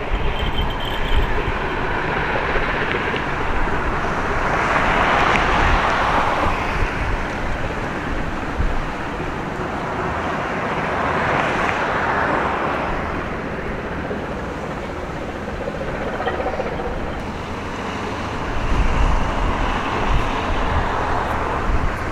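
Road traffic going past: a vehicle's tyre noise swells up and fades away three times over a steady low rumble. Gusts of wind hit the microphone near the end.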